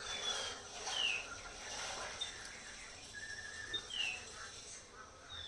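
A bird chirping: short, high, falling chirps about once a second.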